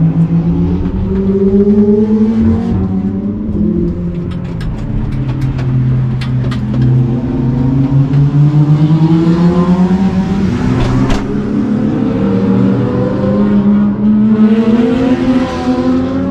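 Nissan Silvia S15 race car's engine driven hard on track, its note climbing with the revs and dropping back at gear changes several times. A run of short sharp clicks comes about four to seven seconds in.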